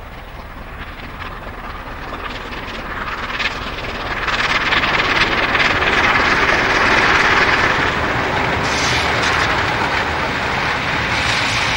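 Czech class 464.2 4-8-4T steam tank locomotive 464.202 'Rosnička' and its passenger train passing by. The noise grows louder over the first few seconds and stays loud as the train goes past.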